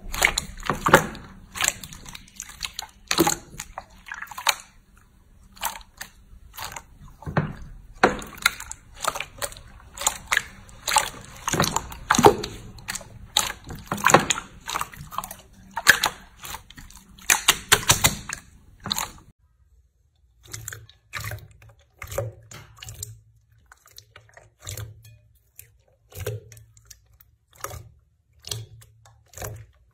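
Hands squeezing and kneading a large mass of clear blue slime, giving irregular wet squelches, clicks and pops. About two-thirds of the way in it changes to sparser, quieter squishes as thick purple slime is pressed.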